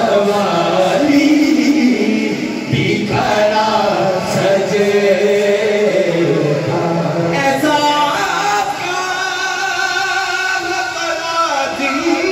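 Men singing a naat, an Urdu devotional song in praise of the Prophet, unaccompanied by instruments, with long held, wavering melodic lines.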